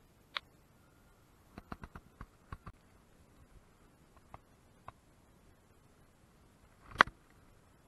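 Scattered light clicks and ticks from a spinning rod and reel being handled, with a quick run of clicks early on and one sharp, much louder click about seven seconds in.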